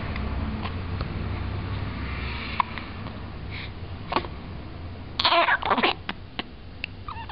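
Hiccups: several short, sharp hiccup sounds a second or two apart, with a louder voiced burst a little past the middle.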